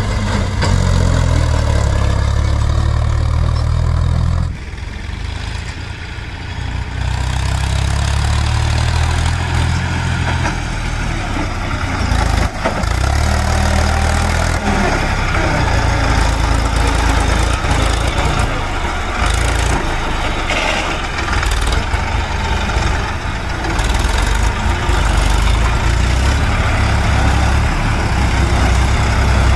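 HMT 4522 tractor's diesel engine running steadily while it hauls a trolley loaded with soil, briefly quieter about four and a half seconds in.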